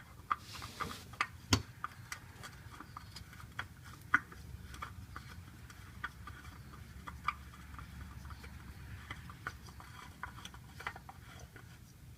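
Irregular light clicks and taps of hands handling a new oil filter and threading it on, with a sharper knock about a second and a half in and another around four seconds.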